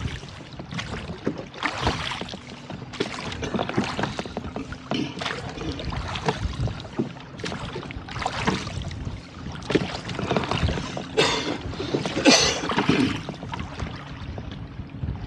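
Rowboat being rowed with wooden oars: repeated splashes of the blades dipping and pulling through the water, about one every second or so, over a steady wash of water. The loudest splashes come near the end.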